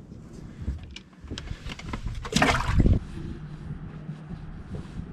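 Light clicks and rustles as a just-caught crappie is handled, then a short splash and rush of water about two and a half seconds in as the fish goes into the water. After that comes a steady low hum with wind on the microphone.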